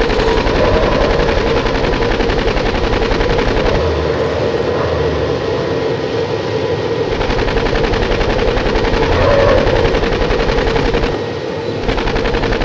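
Rapid, continuous machine-gun-style fire, a dense rattle of shots that dips briefly about eleven seconds in and then carries on.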